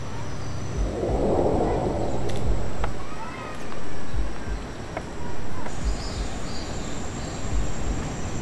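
Outdoor evening ambience: steady background noise under a thin, high continuous hum, with a swell of noise about a second in, a few faint chirps and scattered low thumps.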